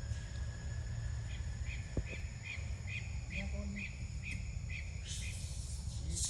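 A bird chirping the same short note about ten times at a steady pace, a little over two notes a second, over a steady low outdoor rumble. About five seconds in, a loud high hiss sets in and pulses.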